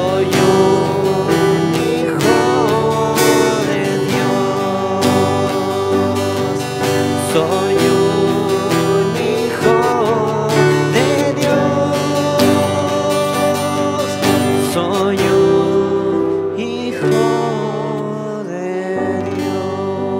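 Live worship band playing a slow song: strummed acoustic guitar under a singing voice, getting a little quieter near the end.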